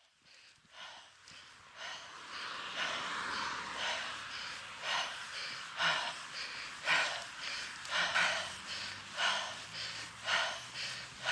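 A mountain biker breathing hard from the exertion of climbing, in rhythmic puffs about once a second.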